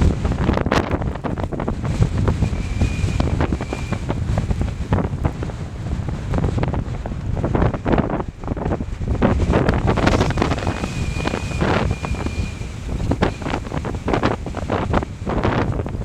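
Strong gusting desert wind buffeting the camera microphone, a heavy low rumble broken by rapid flutters as gusts hit. A faint high whistle comes and goes twice.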